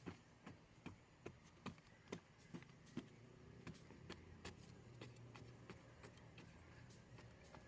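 Faint, quick tapping or knocking, about two or three strokes a second, louder in the first few seconds, over a low steady hum.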